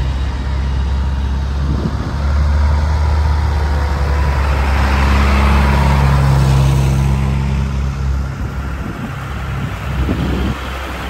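Large diesel farm tractors, one pulling a tanker trailer, driving slowly past close by with a steady low engine note. The engine and tyre noise swell as one tractor passes about five to six seconds in, then ease off.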